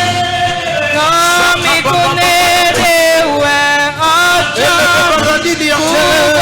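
A slow worship song: a voice sings long, drawn-out notes with a wavering pitch over sustained keyboard chords.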